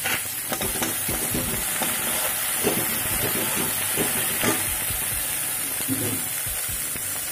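Chopped onion, capsicum, garlic, ginger and green chilli sizzling in hot oil in a kadhai, with a steady hiss, while a metal spatula stirs them and scrapes and taps against the pan many times.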